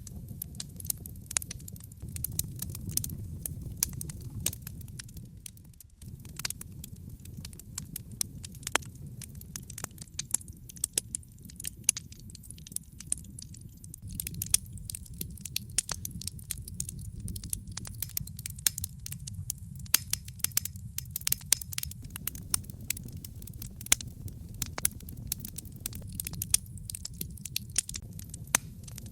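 Wood fire burning in a fireplace: burning logs crackling with frequent sharp irregular pops and snaps over a low steady rumble of flame.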